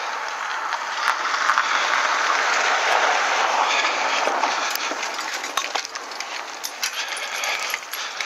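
A car passing close by on a wet road, its tyre hiss swelling over the first few seconds and then fading. Light clinks and rattles follow from the bicycle and its dog-lead attachment as riding resumes.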